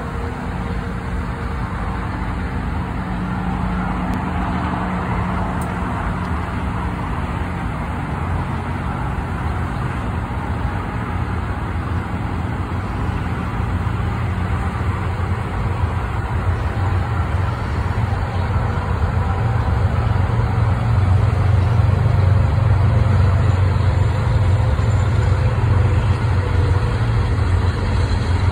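Steady low rumble of passing road traffic and a freight train. A deeper engine drone builds and grows louder in the second half as a large vehicle comes close.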